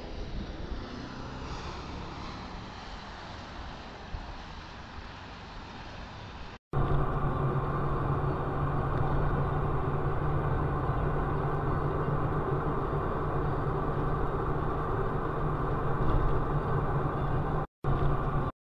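Vehicle sound from dashcam footage: moderate traffic and road noise at first, then, after a sudden cut about six and a half seconds in, a louder, steady engine drone heard from inside a moving vehicle, with a brief dropout near the end.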